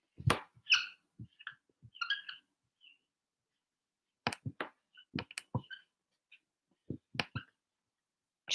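Dry-erase marker on a whiteboard: a sharp click soon after the start, faint scratches, then about a dozen short taps and scratches over three seconds as letters are written, beginning about four seconds in.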